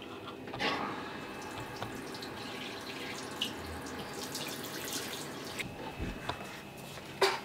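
Tap water running into a bathroom sink, with dripping and light splashing from a small child's hands in the water.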